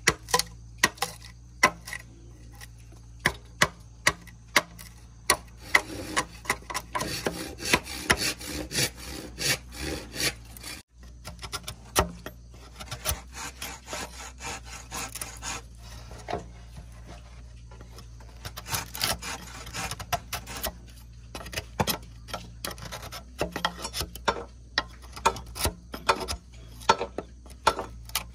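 Machete chopping and shaving into a green bamboo pole to cut out a rectangular hole: irregular sharp chops, a few a second, with stretches of quicker scraping cuts.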